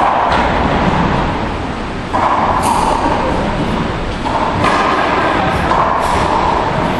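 A few sharp knocks and thuds ringing in an enclosed racquetball court, over a steady background noise.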